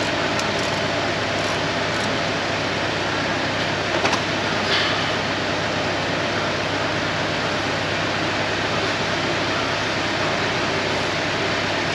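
Steady rushing noise of running machinery or ventilation in a workshop, with a low hum, and a couple of brief clicks about four seconds in.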